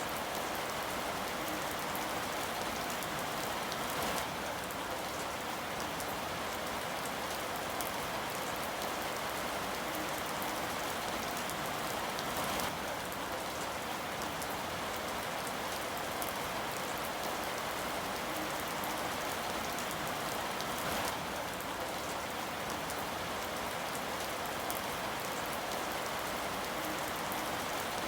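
Steady rain falling on a surface, an even hiss with scattered individual drops pattering through it.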